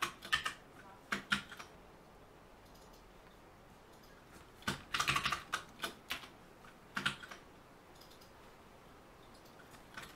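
Typing on a computer keyboard in short bursts of keystrokes, with a quiet gap of a few seconds in the middle.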